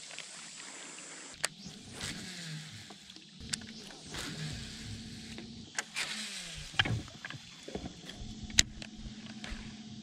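Baitcasting reel being cranked in: a whirring gear hum that starts and stops several times, with a few sharp clicks. Just after the middle, a whir falls in pitch as the spool spins down after a cast.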